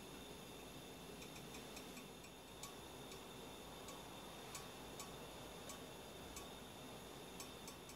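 Near silence: quiet room tone with a faint steady high hiss and a scattering of faint, irregular ticks.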